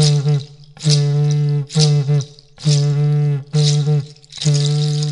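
Voice chanting a Macuxi parixara song: steady held notes on a flat pitch, repeated in an even beat of about one a second with short breaks between them.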